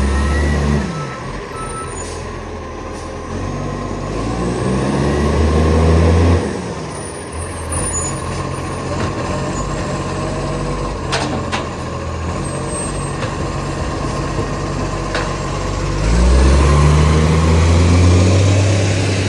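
Garbage truck's diesel engine with an exhaust leak, revving up twice and settling back between, its leaking exhaust loud and rough. A reversing beeper sounds briefly at the start, and a few sharp clicks come near the middle.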